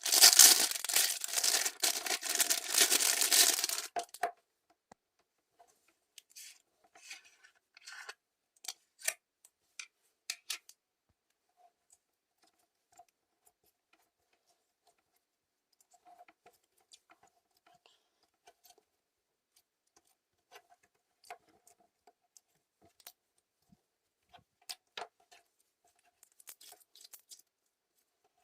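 Crystal (clear) slime being squished and stretched by hand: a dense crackling for about the first four seconds, then scattered small pops and clicks.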